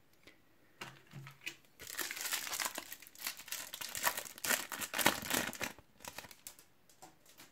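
Foil wrapper of a Topps Match Attax booster pack crinkling and tearing as it is opened, about four seconds of dense crackling.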